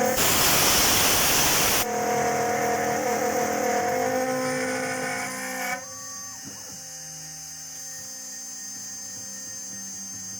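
A home-built CNC column milling machine cutting aluminium: a loud, harsh cutting noise for the first two seconds, then a steady pitched whine. About six seconds in the cutting stops and only a quieter steady hum with a high thin whine remains.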